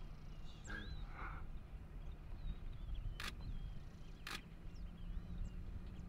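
Camera shutter clicking twice, about three and four seconds in, with small birds chirping and a low steady hum underneath.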